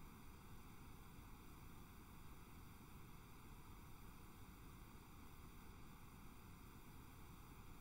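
Near silence: a steady faint hiss of recording noise.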